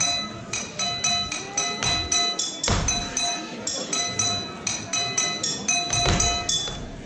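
Small metal hand percussion struck in a quick steady rhythm, about four ringing strikes a second, all on the same bright pitches. Two deep, heavier thumps about three seconds apart stand out over it.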